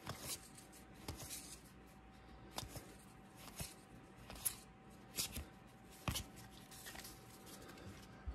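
Baseball trading cards being flipped through by hand, one sliding over the next: faint, irregular soft snaps and swishes of card stock, over a faint steady hum.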